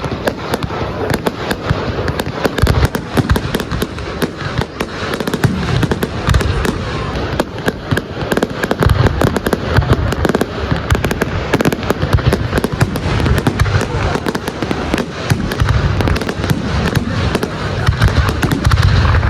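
Fireworks display going off: a continuous rapid crackle of sharp cracks and pops, with heavy low booms coming through in places, strongest about halfway through and again near the end.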